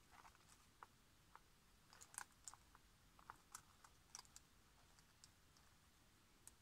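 Near silence with faint, irregular crinkles and clicks of paper flowers and cardstock being pressed and adjusted by hand, busiest in the middle.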